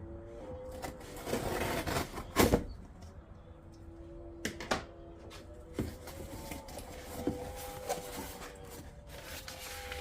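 A cardboard shipping box being opened and its contents handled: rustling and scraping with several sharp knocks, the loudest about two and a half seconds in.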